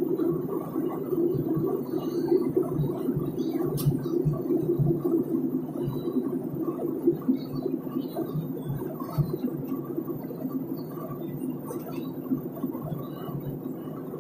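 Steady rumble of a jet airliner's cabin in flight, the noise of the engines and the air rushing past the fuselage heard from a window seat.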